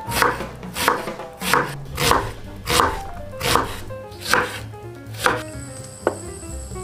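Chef's knife chopping an onion on a wooden cutting board: about eight even chops, roughly one every 0.7 seconds, stopping a little after five seconds in. A single sharp tick follows about a second later.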